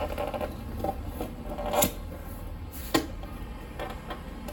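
Motorcycle side cover being pushed onto its mounts, its three pegs pressing into rubber grommets: a few soft knocks and clicks, the two clearest about two and three seconds in, over a low steady hum.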